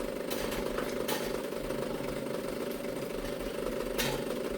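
Espresso machine pump running steadily during a clean-water flush, a continuous buzzing hum, with a few light clicks over it.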